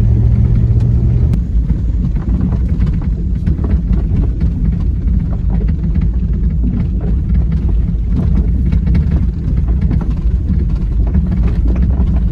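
2000 Jeep Grand Cherokee's 4.7-litre V8 running and its tyres on a dirt road while driving, a steady low rumble with many small ticks and rattles over it. A steady low hum underneath drops out about a second and a half in.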